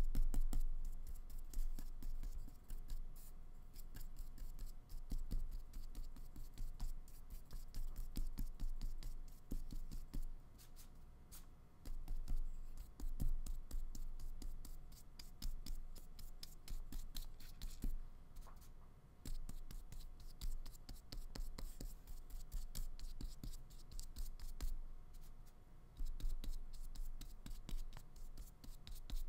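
Flat paintbrush stroking acrylic paint onto paper: a dry, scratchy rubbing in quick repeated strokes, with a few brief pauses.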